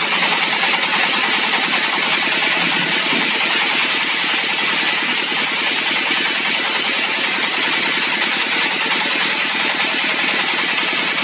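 Engine-driven mobile band sawmill running steadily, a fast, even engine beat under a constant high hiss from the blade, while a log is fed through the saw.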